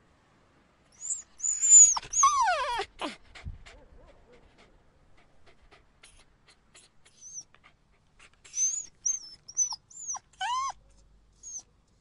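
Puppy crying: high-pitched whines and whimpers, with a long falling cry near the start and a run of short, high whines near the end.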